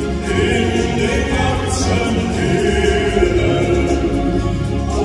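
Live performance of a German folk hiking song: several voices, a male lead with female backing singers, singing together over piano and acoustic guitar accompaniment.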